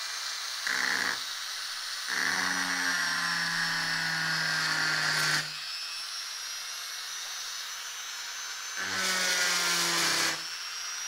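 INGCO mini die grinder with a diamond bit grinding on a glass sheet in three passes: a brief touch early, a longer pass of about three seconds, and another of about a second and a half near the end. Each pass is a steady pitched hum with a gritty scratch, over the tool's faint high hiss in between.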